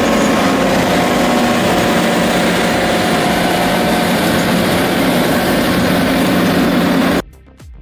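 A machine's engine running steadily under a dense, loud noise, which cuts off suddenly about seven seconds in; quiet background music with a beat follows.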